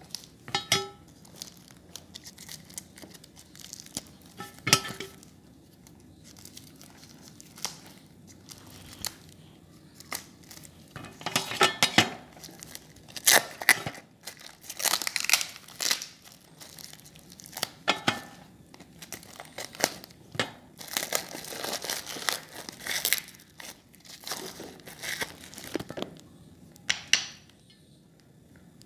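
Clear plastic wrapping being crinkled and torn off bars by hand, in irregular bursts. A steel plate gives a short ringing clink twice in the first few seconds.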